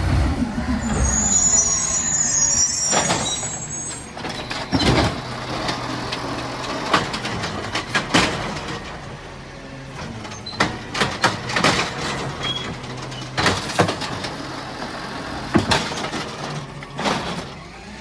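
Recycling truck running with its engine humming and a short high air hiss early on, then a long string of irregular clanks and bangs from the pickup as the bin is handled and emptied.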